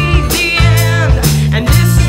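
Live folk-rock band playing: a voice singing with vibrato over guitar, bass and drums.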